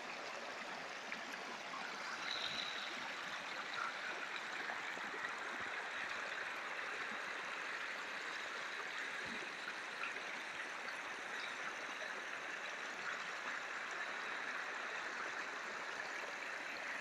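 Running water bubbling steadily, an even rushing hiss with a few small ticks of drops.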